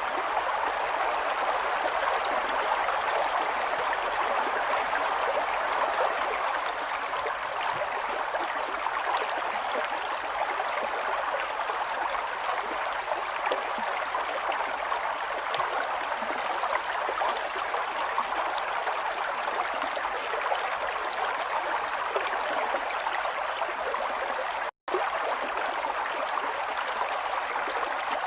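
Steady rushing of flowing water, like a stream, cutting out for an instant near the end.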